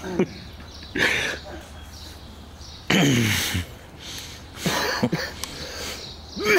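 Short, wordless bursts of a person's voice: throat-clearing and cough-like sounds, with one falling vocal sound about three seconds in.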